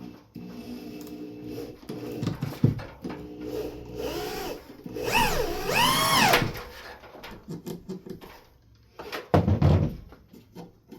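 Power drill driving screws into a wall-shelf support arm. The motor runs in short pulls of the trigger, its pitch rising and falling, and a few knocks follow near the end.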